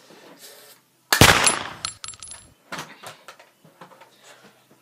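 A single loud bang about a second in, dying away within a second, with a few faint high metallic tinkles after it: a hand-grenade explosion sound effect.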